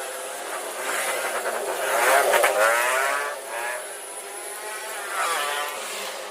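Motorcycle engine revving, its pitch climbing and falling, loudest about two seconds in and again more briefly near the end.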